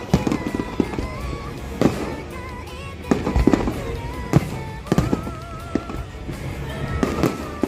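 Fireworks bursting, a run of separate booms spaced irregularly about a second apart, with music playing along under them.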